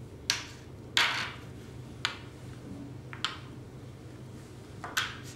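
Xiangqi pieces clacking down onto the board as moves are played, five sharp clacks roughly a second apart.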